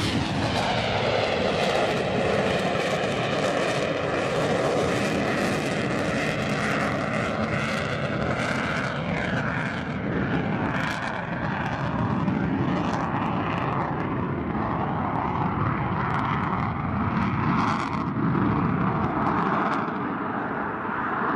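F-22 Raptor's twin turbofan jet engines running loud and continuous through flight manoeuvres, the engine tone falling in pitch just after the start as the jet passes.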